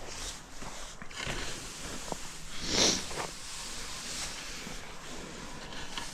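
One short, loud snort or blowing exhale from cattle about three seconds in, over the faint steady background of the feedlot.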